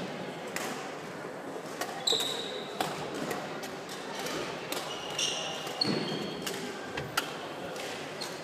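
Badminton rally in a large hall: sharp racket strikes on the shuttlecock every second or two, mixed with short high squeaks of court shoes on the wooden floor.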